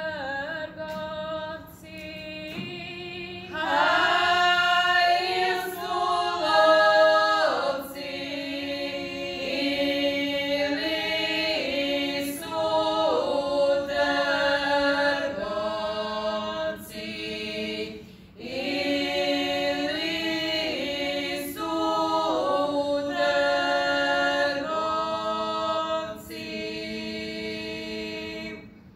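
A small group of women singing a traditional Croatian wedding song (svatovska pjesma) unaccompanied, in long held phrases. One voice carries the opening bars alone before the others come in about three seconds in, with short breaks for breath between phrases.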